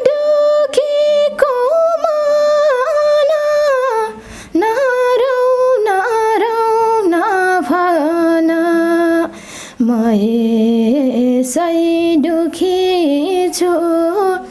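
A woman singing a slow melody solo, holding long, wavering notes, with short pauses between phrases about four and nine and a half seconds in.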